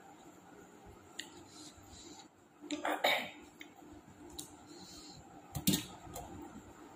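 A person eating from a plate, with faint clinks and clicks. A short throat sound comes about three seconds in, and a brief sharp sound comes near six seconds.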